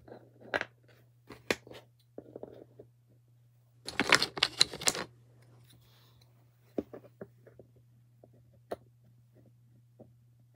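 Plastic dominoes clicking and tapping against each other and a wooden board as they are set upright one at a time, with a burst of rapid clattering about four seconds in, then a few fainter taps.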